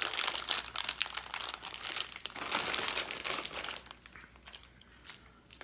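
A candy wrapper crinkling as it is handled and opened by hand: dense crackling for about three and a half seconds, then a few scattered crackles near the end.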